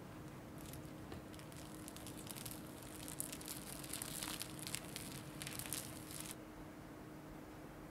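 Plastic cling wrap crinkling as it is peeled back off a tray of risen donut dough balls. The crackle starts about half a second in, grows busier in the middle and stops abruptly about six seconds in.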